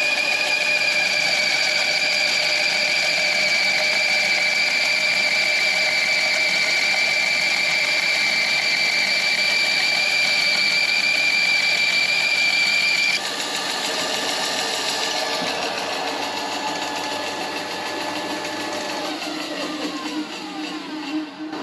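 Bandsaw running and cutting through a thick block of painted timber, with a steady high whine. About 13 seconds in the cut ends and the saw runs on more quietly; near the end its pitch falls as it winds down.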